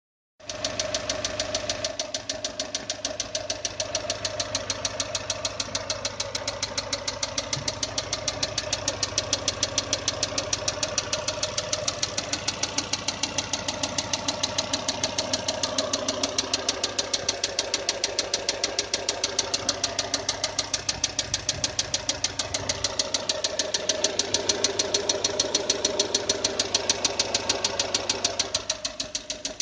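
An engine idling with a rapid, even knock that repeats several times a second; the owner cannot tell where the knock comes from.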